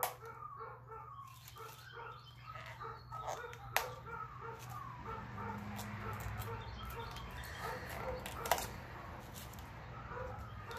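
Cauliflower florets being snapped off the head by hand, with a couple of sharp cracks, about four seconds in and again past eight seconds. Short repeated bird calls and a steady low hum run underneath.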